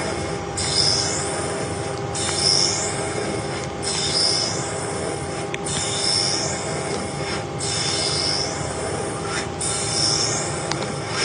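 CNC lathe cutting metal: a steady machine hum under a high-pitched squeal that comes back about every two seconds, with brief sudden breaks between.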